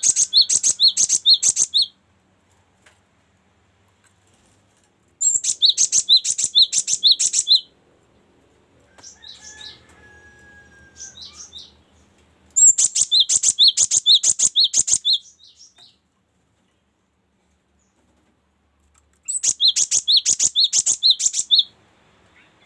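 Cinereous tit (gelatik batu) singing: four bursts of a quickly repeated two-note phrase, a high note dropping to a lower one, each burst lasting a couple of seconds. Softer, quieter calls come between the second and third bursts.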